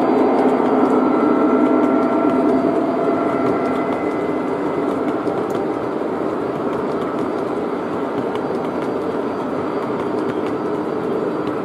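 O gauge model coal hoppers rolling past on three-rail track: a steady rumble and clatter of wheels on rail. Faint steady tones in the first few seconds fade, and the sound eases slightly after about four seconds.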